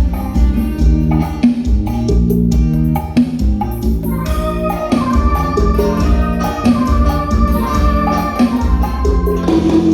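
Instrumental stretch of a song, guitar and bass over a heavy, regular beat, played through a JBL portable speaker mounted on a motorcycle to show off its bass.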